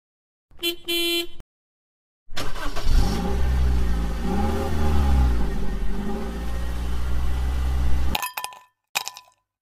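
A short pitched tone about half a second in, then a motor vehicle engine running for about six seconds, its pitch rising and falling a few times, cut off abruptly.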